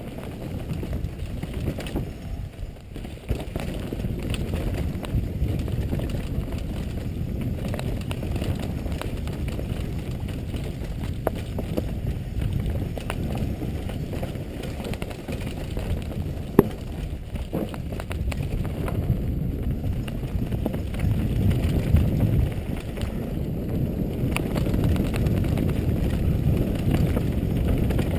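Downhill mountain bike running over a dirt and rocky trail, heard from a helmet-mounted camera. Wind buffets the microphone and the tyres rumble, with scattered clicks and knocks from the bike rattling over the bumps. One sharp knock comes a little past halfway.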